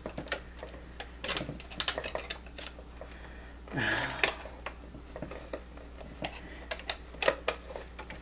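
Irregular small clicks and taps of plastic and metal as a part is pressed and worked at the bobbin area of a Janome HD3000 sewing machine, failing to snap back into place. A short murmured vocal sound about four seconds in.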